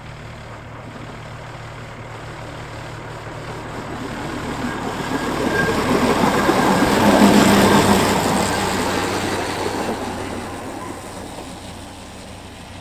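Narrow-gauge railcar 'The Goose' passing by, its engine running and its wheels running on the rails. The sound grows louder as it approaches, is loudest about seven seconds in, then fades as it moves away.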